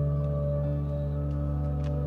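Background music: slow ambient chords held over a deep bass note, with a new note entering a little over half a second in.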